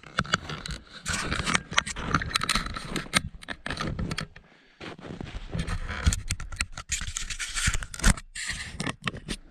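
Footsteps crunching and scraping in deep snow, with a short pause about four and a half seconds in.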